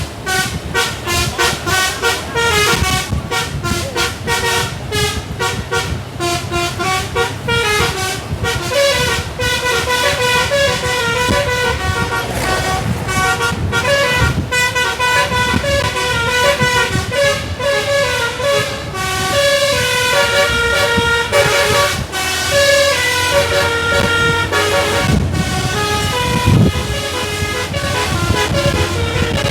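A tour bus's telolet basuri musical air horn playing a tune: short clipped notes at first, longer held notes in the second half, over a low rumble.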